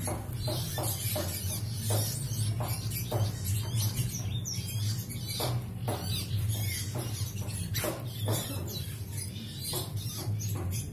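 Young pied fantail calling: a run of quick, high squeaky chirps and clicks, over a steady low hum.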